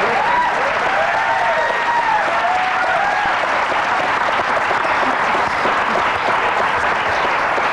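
Studio audience applauding steadily, with a few voices calling out over the clapping in the first three seconds.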